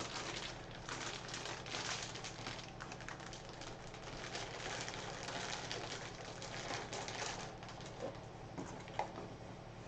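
Anti-static bag and box packaging crinkling and rustling as a graphics card is packed back into its box, with a few light knocks near the end.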